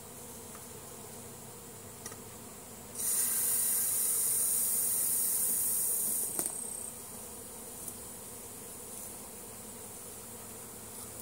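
Insects buzzing steadily, with a much louder high-pitched insect buzz setting in about three seconds in and stopping about three and a half seconds later.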